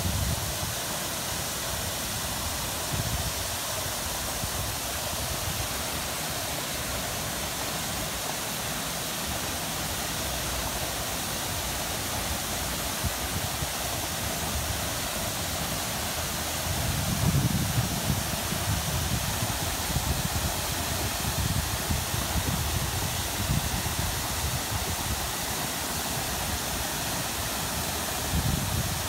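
Fountain jet and its ring of spray nozzles splashing steadily into a reflecting pool, an even, unbroken hiss of falling water. A low rumble underneath comes and goes, swelling about two-thirds of the way through.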